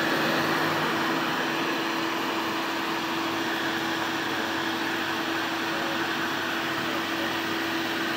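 Steady hum and noise of idling vehicles, with one constant droning tone throughout.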